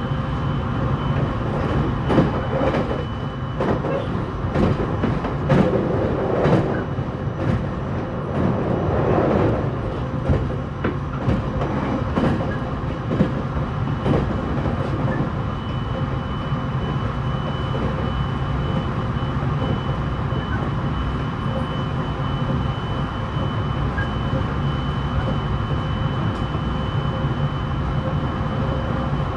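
Running sound inside a JR East E721 series electric train's motor car: a steady low rumble with irregular knocks and clatter from the wheels on the rails in the first half, and a thin steady high tone coming in about halfway.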